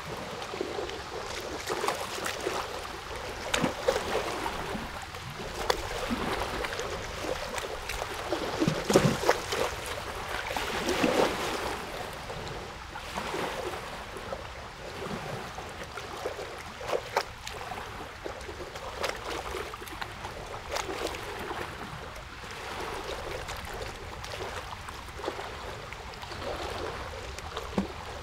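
Water lapping and splashing in an uneven wash of small splashes, with a few louder surges.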